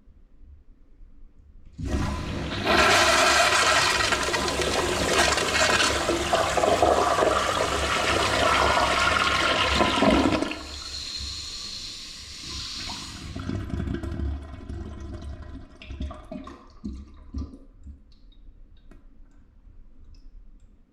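Toilet flushing: a sudden loud rush of water starts about two seconds in and runs for about eight seconds. It then drops to a quieter gurgling and trickling that dies away.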